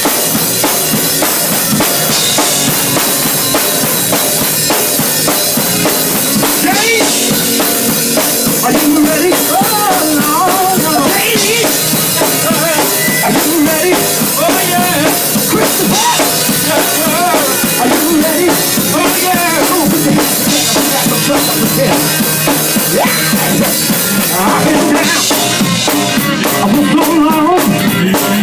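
Live gospel music played loud, with a drum kit keeping a steady beat under the band.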